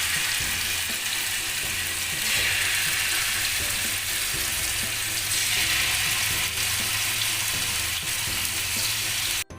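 Marinated chicken pieces sizzling in hot oil on a flat tawa, a steady frying hiss that cuts off abruptly near the end.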